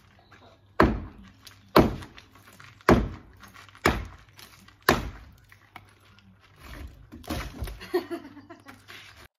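Sledgehammer blows on a brick and block wall: five heavy strikes about one a second, then a few lighter knocks and rubble noise near the end.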